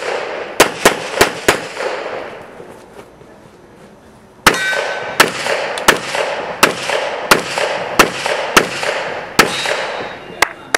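Pistol shots fired in a practical shooting stage: a quick string of four shots about a third of a second apart, a lull of about three seconds, then around nine more shots at an even pace of roughly two-thirds of a second apart. Each shot leaves a short echo.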